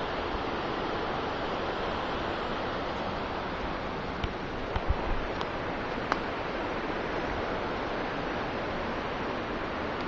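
Steady rushing noise with no pitch to it, with a few short clicks and snaps between about four and six seconds in.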